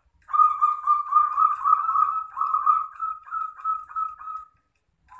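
Zebra dove (perkutut) cooing: a run of short staccato coo notes on one pitch, packed close together at first, then spacing out and fading before stopping about four and a half seconds in.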